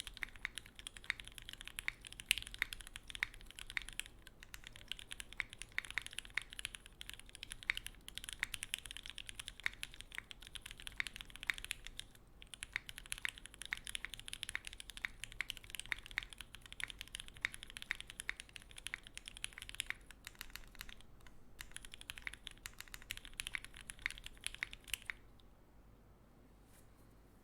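Typing on a Phantom65 mechanical keyboard with lubed Gateron Clear linear switches in an o-ring-mounted POM plate: a quick, continuous run of keystroke clacks with brief pauses. The typing stops a couple of seconds before the end.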